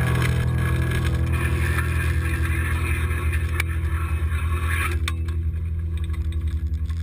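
Steady low droning hum with a fast fluttering pulse. The higher hiss drops away about five seconds in.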